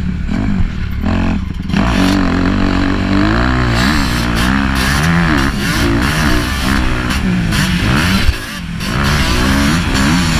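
Motocross bike engine being ridden hard, revving up and down repeatedly as the rider works the throttle and gears. The throttle is chopped briefly just after eight seconds in, then picks up again.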